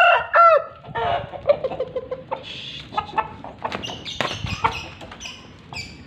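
Bangkok gamefowl clucking and squawking: a drawn-out call right at the start, then a run of short, high-pitched clucks over the last few seconds.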